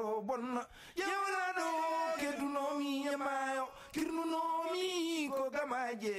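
A Fulani griot sings solo, holding long wavering notes with vibrato in three drawn-out phrases, with a short breath about a second in and another near four seconds.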